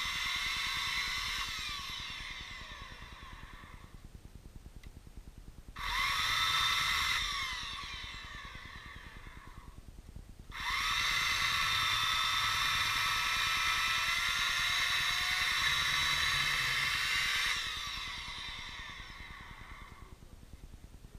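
Handheld electric saw cutting dry apricot root wood into firewood. The high motor whine runs in three bursts: one cut already going at the start, a short one about six seconds in, and the longest from about ten to seventeen seconds in. After each one the whine winds down in falling pitch as the trigger is let go.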